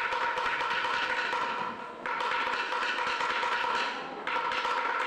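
Choir singing held chords in phrases about two seconds long, each new phrase starting abruptly after a short fade.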